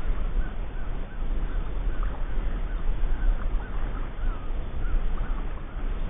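Marsh birds calling over and over in short, irregular chirps, over a steady low rumble of wind noise on the microphone.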